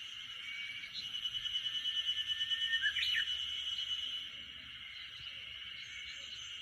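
Forest ambience: a steady, high-pitched insect chorus that swells and pulses from about one to four seconds in, then settles. A few short bird calls sound over it, among them a thin held whistle and a quick chirp sweeping up and down near the middle.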